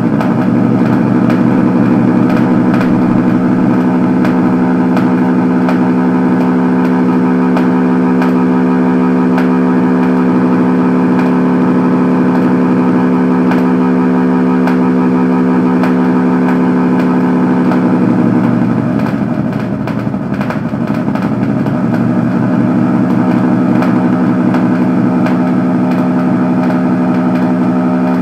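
A loud, steady, engine-like droning buzz that dips briefly about two-thirds of the way through, then resumes.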